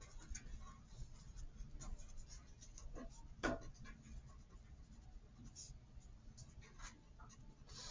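Pen writing on paper: faint scratching in short, irregular strokes as words are written out, with one louder stroke about three and a half seconds in.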